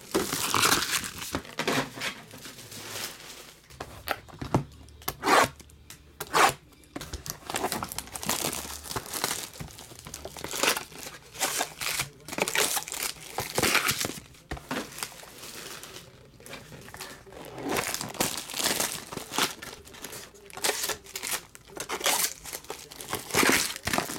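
Plastic shrink wrap crinkling and tearing as it is stripped off sealed boxes of trading cards, with card packs rustling as they are handled and stacked. The crinkling comes in irregular bursts, some much louder than others.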